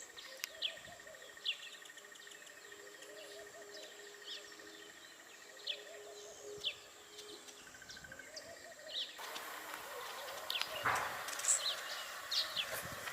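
Small songbirds chirping: short, high down-slurred chirps about once a second over faint outdoor background, which becomes louder and busier with more chirps about nine seconds in.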